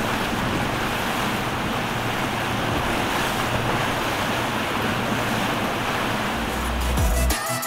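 Steady rushing wash of wind and choppy water. Near the end a deep bass swells in as music begins.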